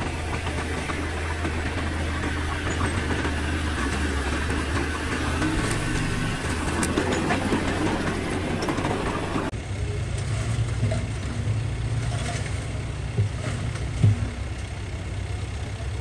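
Diesel engine of heavy earthmoving equipment running steadily. About nine and a half seconds in the sound changes abruptly to a different engine note, with a couple of sharp knocks near the end.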